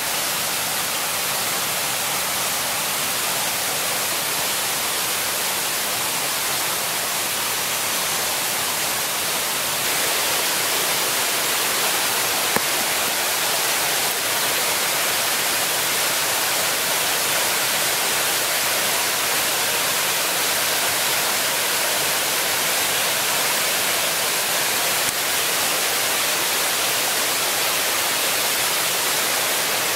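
Steady rush of flowing water from a forest stream or waterfall, an even hiss that holds unchanged throughout.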